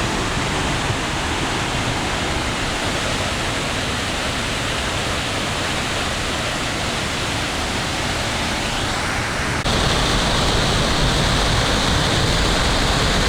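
Waterfall in full spate after heavy rain: a steady, loud rush of falling water. About ten seconds in it abruptly becomes louder and fuller.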